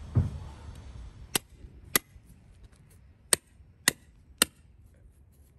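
A club hammer strikes a steel string-line pin, driving it into the ground: five sharp, ringing metal-on-metal blows at uneven intervals, after a low thump just at the start.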